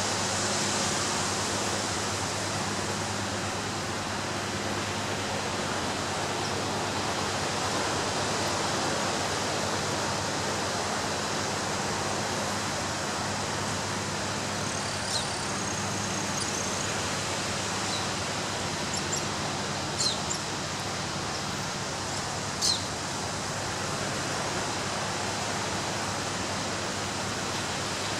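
Ocean surf washing onto a beach, a steady rush of water that swells and eases slowly. A few brief, sharp high clicks come about two-thirds of the way through.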